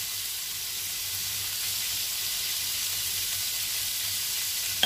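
Beef, chorizo and bean sprouts frying in a nonstick pan with a steady sizzle. A single sharp click comes near the end.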